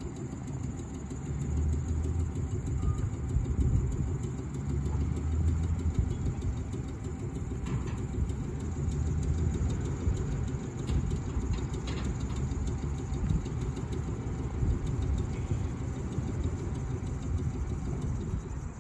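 Single-truck vintage electric tram rolling slowly on its rails: a steady low rumble, with a few faint clicks.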